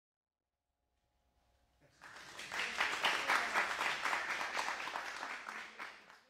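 Audience applauding. It starts about two seconds in, builds quickly to a full round of clapping and fades out near the end.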